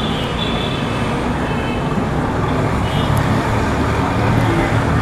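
Steady street traffic noise, with the low hum of engines running under an even roar.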